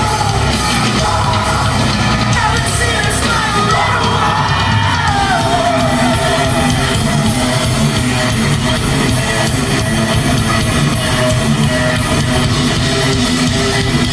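Rock band playing live and loud: drum kit and distorted guitars under sung and yelled vocals, with a gliding pitched line a few seconds in.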